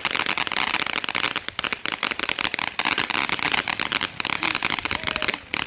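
Ground firework spraying crackling sparks: a dense, rapid run of small pops that drops off sharply near the end.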